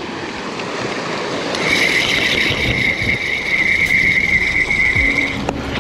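Spinning reel cranked fast on a retrieve, its gears giving a steady high whine from about a second and a half in until just before the end, over a wash of wind and surf.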